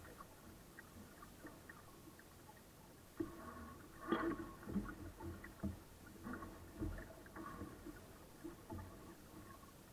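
Irregular muffled knocks, thumps and rustling, starting about three seconds in and lasting several seconds, with the loudest knock just after four seconds: a crew member working on a small sailboat's foredeck, handling a sail and its lines. Between the knocks only a faint steady hiss.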